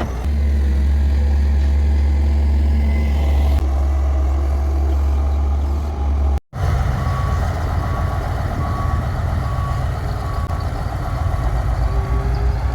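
Heavy diesel machinery engine running steadily at a work site. After a brief dropout about halfway through, a reversing alarm beeps about twice a second over the engine.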